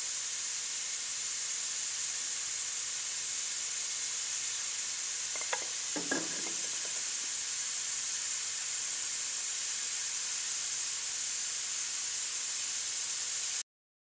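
A steady hiss, with two light knocks about halfway through as wooden moulding pieces are handled against the miter saw. The hiss cuts off suddenly near the end.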